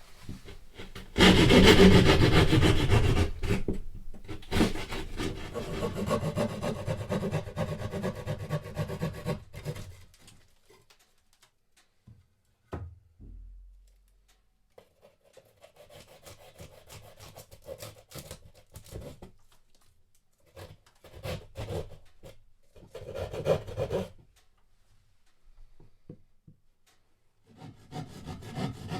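A hand saw cutting vent openings through drywall: quick back-and-forth strokes, loudest in a long first bout, then a pause and several shorter bouts, with a single knock midway.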